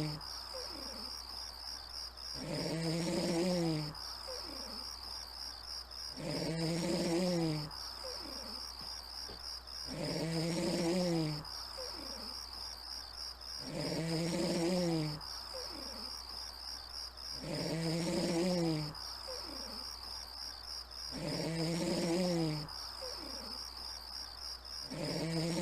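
Snoring: one long pitched snore about every four seconds, seven in a row, over a steady high warbling tone.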